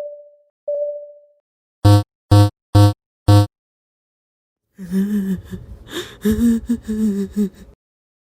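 Cartoon sound effects: a fading beep, then four loud buzzer-like blasts about half a second apart, then a wavering, warbling tone for about three seconds.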